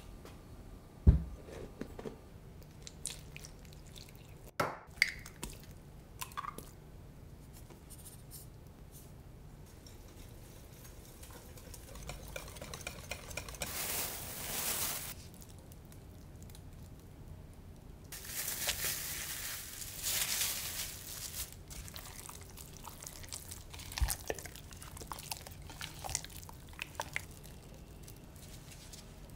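Kitchen handling sounds: a glass mixing bowl set down on the counter with a thud about a second in, a few small clicks, then two stretches of plastic bag crinkling as raw pork is handled with gloved hands.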